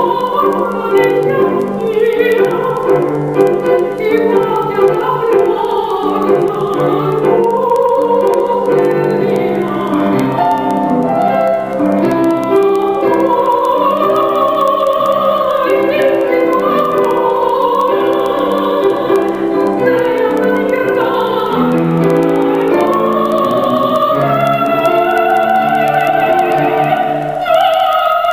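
A woman singing a slow melody in a full classical voice with a wide vibrato, over a sustained instrumental accompaniment. She breaks briefly for breath near the end.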